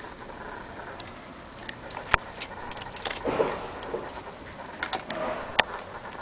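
Wooden Vienna wall clock case being handled: a few irregular sharp clicks and knocks, with a short scraping rustle in the middle.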